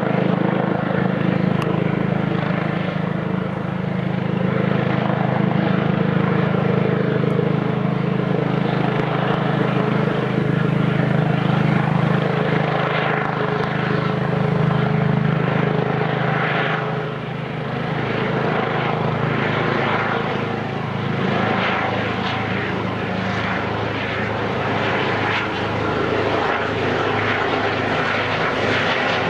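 Air ambulance helicopter flying in on approach to land, its rotor and engine noise steady and loud. In the second half a regular beat from the rotor grows more distinct.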